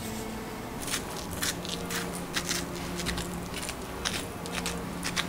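Pepper mill grinding black pepper over tofu slices: a run of irregular crackling clicks starting about a second in.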